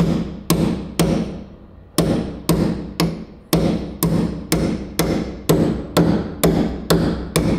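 Hammer blows on a spot weld removal chisel being driven between an outer sill panel and the inner sill to split the spot welds: sharp metallic strikes about two a second, each with a short ring, with one brief pause about a second in.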